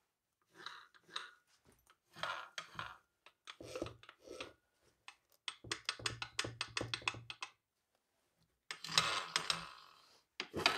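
Unpowered Makita 9005B angle grinders being handled and their spindles turned by hand to see whether they spin. Scattered clicks and knocks, with a fast train of clicks about halfway through and a brief clatter near the end.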